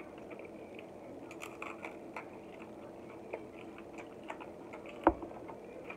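Close-up eating sounds: chewing crab meat, with scattered small clicks of crab-leg shell being handled and a sharper click about five seconds in.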